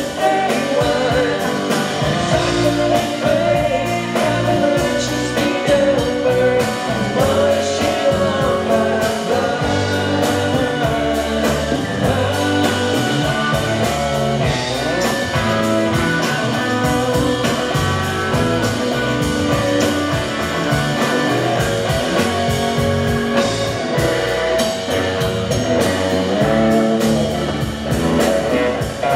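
Live rock band playing: electric guitar, bass guitar, drum kit and keyboards with a sung vocal, a steady rhythmic groove.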